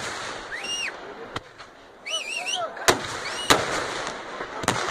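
Daytime festival fireworks: aerial shells bursting in sharp bangs, one fainter bang about a second in, then three loud ones in the second half. People shout between the bangs.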